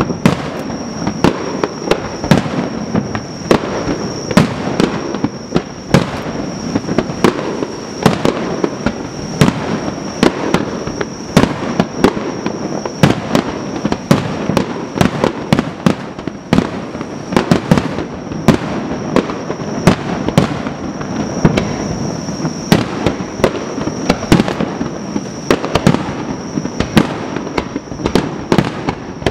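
Fireworks display: aerial shells bursting in quick, irregular succession, sharp bangs over a continuous echoing rumble, with a steady high-pitched tone behind.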